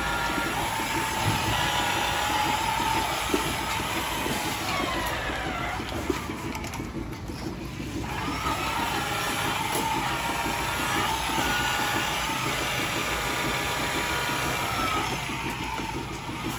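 Milking-parlour machinery running: a steady mechanical rumble with hissing, and a wavering high tone that fades out around the middle and returns later.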